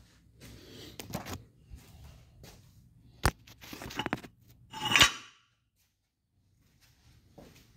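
Handling noise as the camera phone is picked up and repositioned: scattered clicks and rustling with light clinks, a sharp click about three seconds in and a louder clatter about five seconds in.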